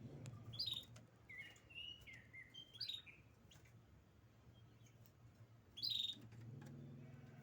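Canary chirping: short, sharp high chirps every two to three seconds, with a brief lower warbling phrase between the first two. A low steady hum comes in near the end.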